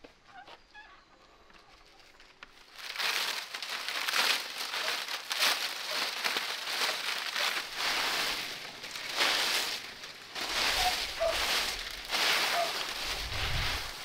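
Dry twigs and palm fronds rustling and crackling in repeated bursts as they are gathered up and dragged over the ground, starting about three seconds in. A few faint bird chirps come through near the end.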